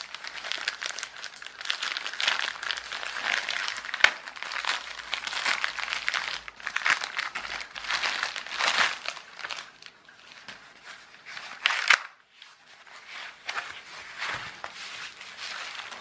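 Padded plastic mailing bag crinkling and tearing as hands pull it open, with a sharp snap about four seconds in and a louder burst near twelve seconds, followed by a brief lull.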